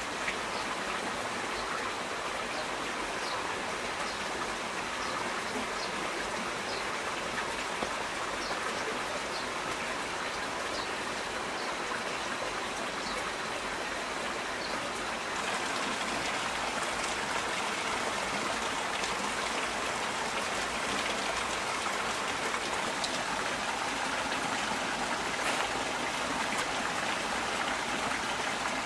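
Heavy rain falling steadily, with small drips ticking now and then in the first half. It grows slightly louder about halfway through.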